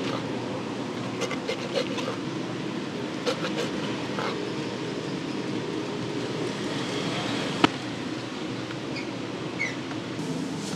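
Knife slicing smoked brisket on a wooden cutting board, with scattered light knocks and one sharp click about two-thirds of the way through, over a steady background hum.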